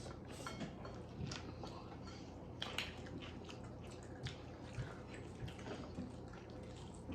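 Quiet eating sounds, chewing and biting, with scattered light clicks and taps over a faint steady hum.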